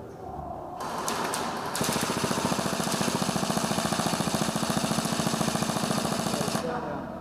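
Airsoft electric gun firing full-auto: one long, rapid burst of evenly spaced shots, about twenty a second, that starts just under a second in, grows louder after another second and stops sharply near the end.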